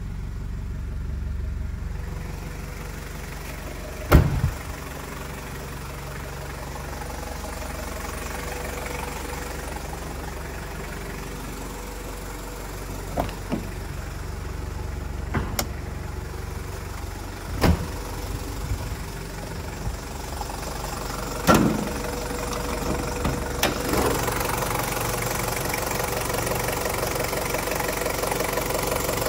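Toyota 1KZ-TE 3.0 L turbo-diesel idling steadily, louder and with more diesel knock over the last few seconds, where it is heard close up in the open engine bay. Several sharp thumps cut in, the loudest about four seconds in.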